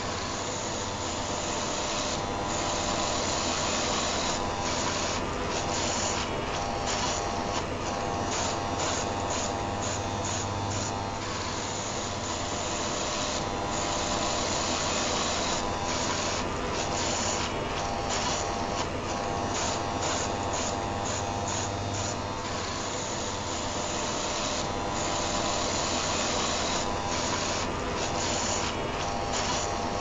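Electric shaver buzzing, layered with the steady hum of an electric heater, as a continuous white-noise track. The upper hiss cuts out briefly again and again at an uneven pace.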